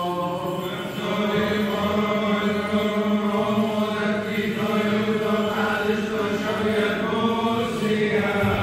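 Syriac Orthodox liturgical chant sung by men's voices, a slow melody of long held notes that shift gently in pitch, carried on without a break.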